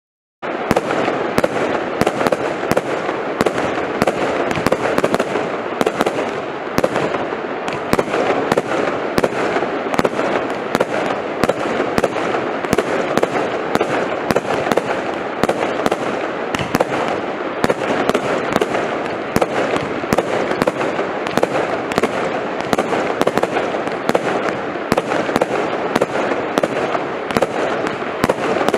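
Lightning Storm compound firework going off: a dense, steady crackle with sharp cracks about two or three times a second, starting suddenly about half a second in.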